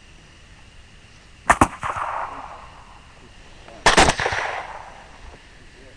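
Rifle fire in two bursts about two and a half seconds apart, each a sharp crack or quick cluster of cracks trailing off in a rolling echo.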